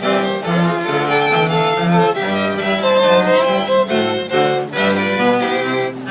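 String quartet playing, violin melody over a cello bass line, bowed notes changing quickly in several voices at once.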